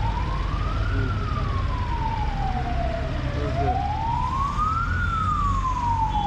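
Emergency vehicle siren wailing slowly up and down, reaching its high point twice, over a low steady rumble of street traffic.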